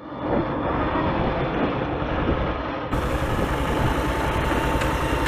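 Motorbike engine running steadily with wind and road noise while riding along, picked up by a camera on the moving bike.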